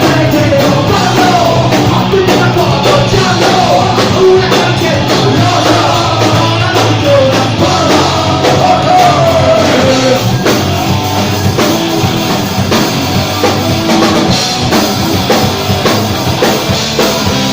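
Live punk rock band playing loud with distorted electric guitars and drums, with sung and yelled vocals.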